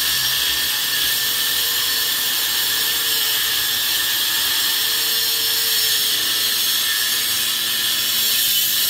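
Angle grinder cutting into a steel mini bike frame: a steady, high grinding whine held under load.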